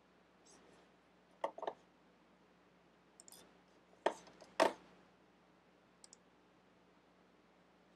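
Computer mouse buttons clicking: a pair of sharp clicks about one and a half seconds in, a louder pair around four to four and a half seconds, and a few faint ticks between, over a faint steady low hum.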